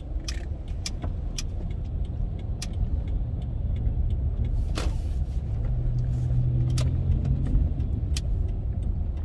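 Car running: a steady low rumble, its engine note a little stronger around six to seven seconds in, with scattered light clicks and rattles.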